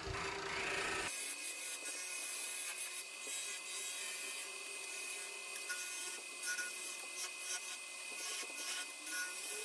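Woodturning lathe with a tool rubbing and scraping against the spinning wooden screwdriver handle. This is a steady scratchy rasp, and a low hum drops out about a second in.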